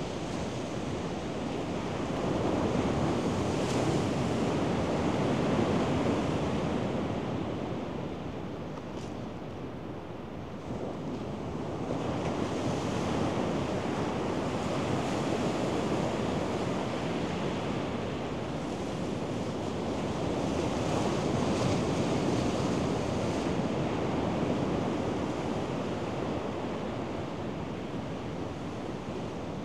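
Ocean surf breaking and washing onto the beach, a steady rush of water that swells and eases in long surges every eight seconds or so.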